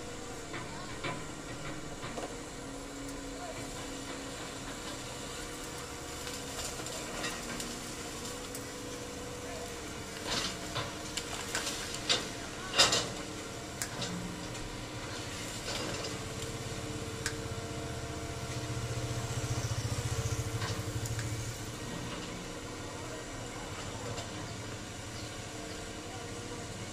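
Tracked hydraulic excavator running and working its arm, with a steady mechanical whine. A few sharp knocks come about halfway through, and a low rumble swells about three-quarters of the way in as the machine works harder. Its hydraulic system, according to the title, is running hot and leaking.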